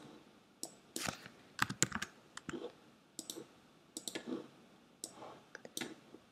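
Computer mouse and keyboard clicks: irregular, scattered sharp clicks, some in quick pairs, as keyframes are copied and moved in animation software.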